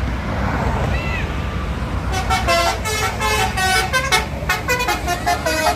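Bus's multi-tone 'telolet basuri' musical horn playing a quick tune of stepped notes, starting about two seconds in, over the low rumble of passing traffic.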